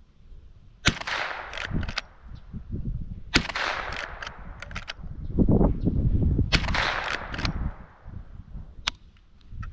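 Three shots from a Marlin 39A lever-action .22 rimfire rifle, about two and a half to three seconds apart, each trailing off over a second or so. After each shot come a few sharp clicks as the lever is worked to chamber the next round.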